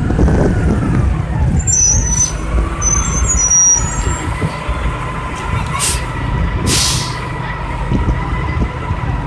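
Engine of a 2003 Orion VII CNG transit bus running as the bus moves off slowly, with a steady high whine that drops in pitch over the first two seconds and then holds. Two short bursts of air hiss come about six and seven seconds in.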